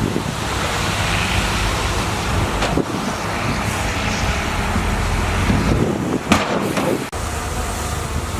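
Bulldozer's diesel engine running steadily, with one sharp knock about six seconds in.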